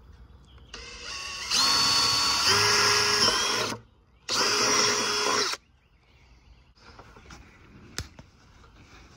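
Cordless drill boring a 3/8-inch hole through the wall of a plastic 5-gallon bucket: the motor whines for about three seconds, its pitch shifting as the bit bites, stops briefly, then runs again for just over a second. A single sharp click follows near the end.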